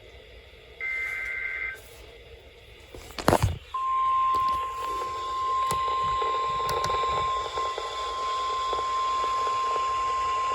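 NOAA Weather Radio alert sequence: a one-second SAME digital header burst, a warbling two-tone data screech, about a second in, then a sharp click, and about four seconds in the steady 1050 Hz warning alarm tone starts and holds, over radio hiss. It signals that a warning, here a flash flood warning, is about to be read.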